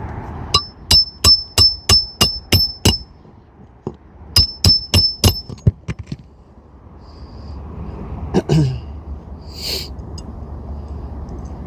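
Hammer driving a roofing nail through an asphalt shingle into the roof decking: a fast run of about eight blows, a short pause, then five more, each with a metallic ping. A couple of brief scraping sounds come near the end.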